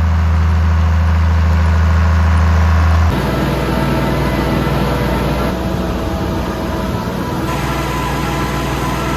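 A vehicle engine running steadily with a strong low hum. The sound changes abruptly about three seconds in and again past seven seconds, as if separate recordings were joined.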